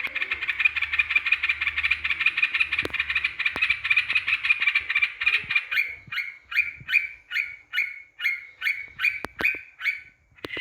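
Yellow-vented bulbul (trucukan) calling. A fast continuous chatter runs for about the first five seconds, then breaks into separate short notes about two a second.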